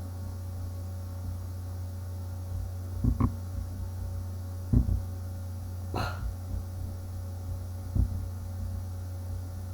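A steady low hum with about four soft thumps or clicks scattered through it, the one a little past the middle the sharpest.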